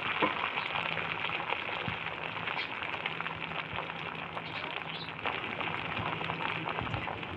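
Beaten egg frying in hot oil in a pan, sizzling steadily with scattered small pops.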